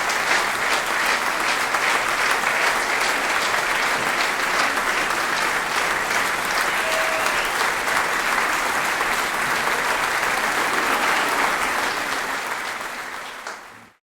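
A large audience applauding, dense and steady clapping that fades out near the end.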